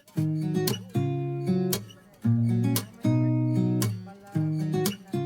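Background music: acoustic guitar strumming chords in a steady rhythm, in phrases of about a second that stop and start again.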